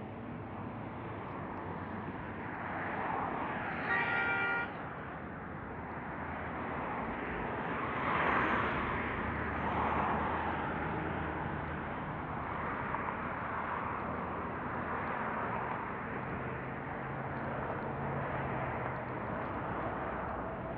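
Road traffic passing on a busy multi-lane street, picked up by the Snap G camera's built-in microphone, with cars swelling past every few seconds. A short car horn honk sounds about four seconds in.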